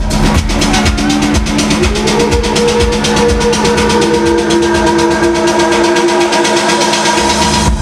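Techno played loud over a club sound system: fast hi-hats under long held synth tones. The kick drum drops out for a short breakdown about five and a half seconds in and comes back at the end.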